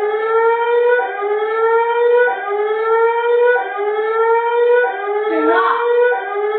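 Earthquake warning alarm: a siren tone that rises and restarts about every second and a quarter, over and over.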